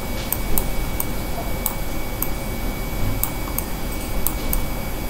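Light, irregular clicks made while handwriting on a digital slide, a few to the second, over a steady low electrical hum and room noise.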